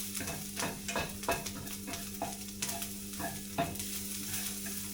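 Sausages frying in a pan: scattered crackles and pops of sizzling fat, over a steady low hum.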